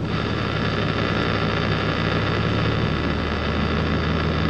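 Steady low drone of a vehicle engine running at low speed, with a hiss over it; the engine note shifts slightly lower about three seconds in.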